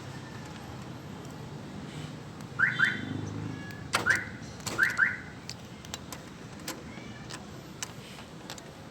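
Vehicle alarm siren chirping as the van is locked and unlocked by remote: two short rising chirps, then one, then two more, with scattered sharp clicks around them.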